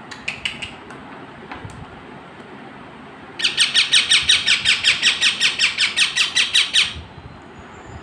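A caged green parrot calling: a few short notes about half a second in, then a loud run of rapid, evenly repeated calls, about six a second, lasting some three and a half seconds.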